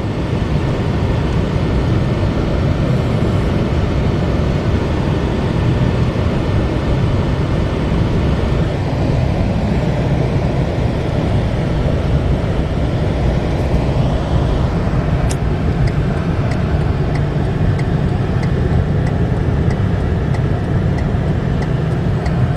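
Steady road and engine rumble of a moving car, heard from inside the cabin. In the second half a faint, regular ticking comes in, about two ticks a second.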